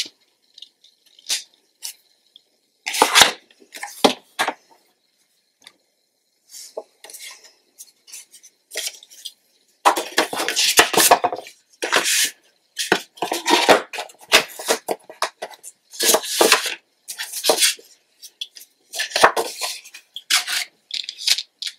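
Kraft cardstock and a plastic paper trimmer being handled on a cutting mat: irregular rustles, scrapes and light clatters. The sounds are sparse at first with a quieter stretch, then come thick and fast from about halfway in.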